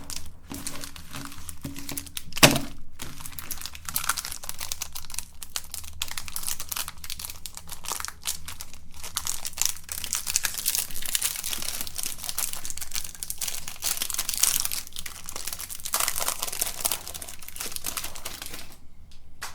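Electric meat grinder running with a steady low hum while chocolate bars are crushed through it, giving a dense, irregular crackling and crunching throughout. There is one sharp knock about two and a half seconds in.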